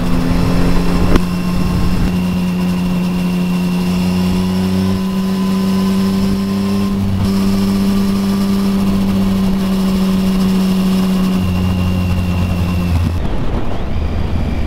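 Triumph Speed Triple 1050's inline three-cylinder engine running at a steady speed on the highway, a held, even engine note with wind and road noise. There is a brief click about a second in. Near the end the steady note drops away, leaving a rougher rumble.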